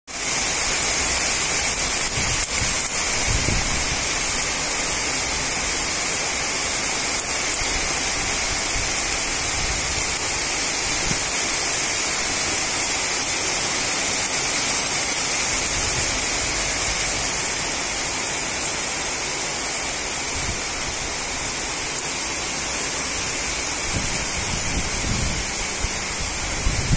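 Heavy rain falling steadily, a dense even hiss with no pauses. There are a few low rumbles of wind on the microphone, mostly towards the end.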